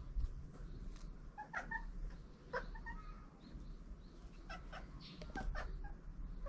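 Stray cats mating, with several short cries from the pair scattered through, over a low rumble of wind on the microphone.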